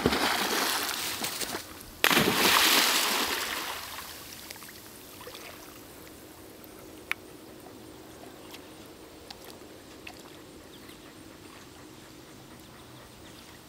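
Dogs splashing in lake water: loud splashing over the first few seconds, with a sudden heavy splash about two seconds in that dies away over the next two seconds. It settles to faint water sounds as the dogs swim.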